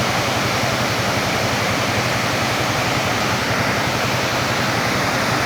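Waterfall swollen with rainwater, a steady loud rush of falling water.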